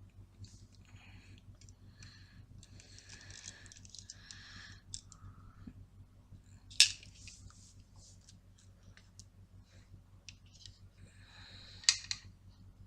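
A small screw being screwed into a hard drive by hand: faint scratchy scraping and ticking as it turns, with two sharp clicks, about seven seconds in and near the end.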